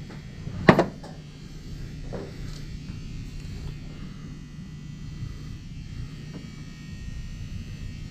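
A steady low electrical buzz, with one sharp knock under a second in and a fainter thud about two seconds in.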